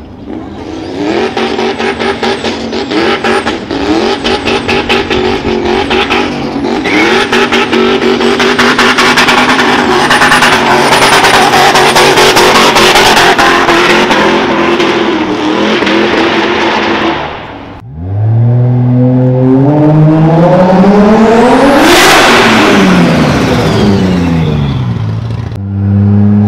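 High-revving car engine in quick stuttering bursts, then held at high revs through a tyre-smoking burnout. After a cut, a car accelerates hard past with its engine note rising, then falling as it goes by, and another engine starts near the end.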